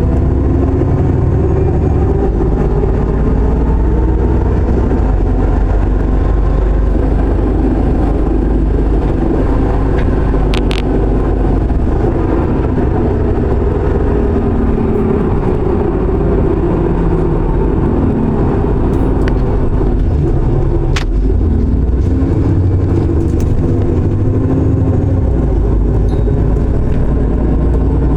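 Alexander Dennis Enviro400 double-decker bus running with a weird noise: wavering tones that slowly rise and fall over a steady low drone. Sharp clicks come about ten seconds in and again about twenty-one seconds in.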